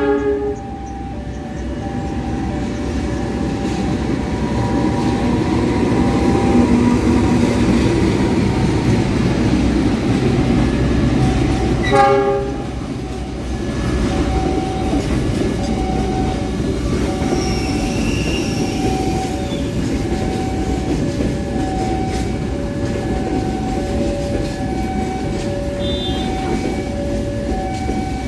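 A CC206 diesel-electric locomotive gives a short horn blast as it reaches the level crossing, and again about 12 seconds in, while its train of passenger coaches rolls past over the rails with a steady rumble. Throughout, the crossing's warning bell chimes two alternating notes, about one every second and a half.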